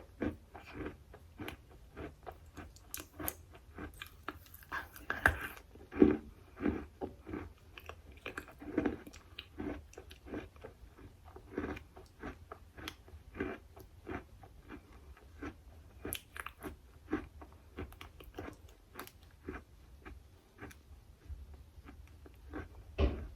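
Close-up chewing and crunching on a hard, chalky material, with irregular crisp bites and crunches one after another. A louder thump comes near the end.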